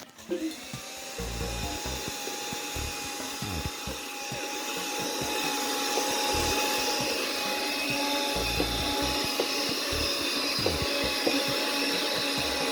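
Small 65-watt handheld car vacuum cleaner switched on and running steadily, its motor giving a constant whine over a rushing hiss.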